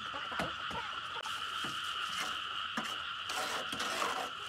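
A steady chorus of frogs calling, with a few soft knocks scattered through it.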